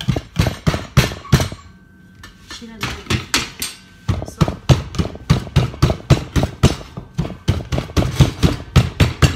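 Raw potato pieces being pounded in a small bowl with the end of a bottle: sharp knocks about three a second, with a short break about a second and a half in.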